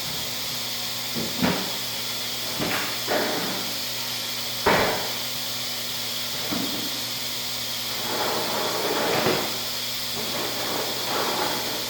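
Steady hiss and low hum of laundromat machines, with several knocks and clunks of handling over it. The loudest clunk comes about five seconds in, and a longer rustling clatter follows a few seconds later.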